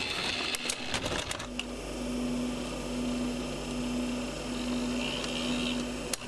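Videocassette recorder's tape mechanism clicking and clattering for the first second or so. It then settles into a steady motor hum with a held low tone as the tape runs. A single sharp click comes just before the end.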